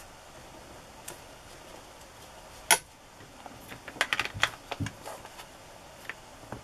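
Rubber stamps and a clear acrylic stamp block clicking and clattering as they are handled and picked through in a plastic storage box. There is one sharp click a little under three seconds in, then a quick flurry of small clicks about a second later.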